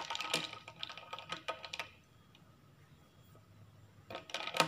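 Small plastic toy figure dunked and swished in a bowl of water: a quick run of small splashes and clicks for about two seconds, a lull, then a louder cluster of splashes and clicks near the end as it is lifted out.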